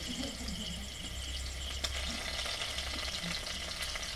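Sliced onion and green chillies sizzling in hot oil in a steel kadai, a steady crackling hiss with a couple of sharper pops, as the onions slowly brown.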